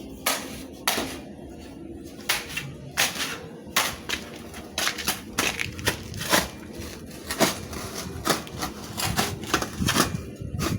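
An irregular series of sharp knocks and clicks, about one or two a second, with scraping between them.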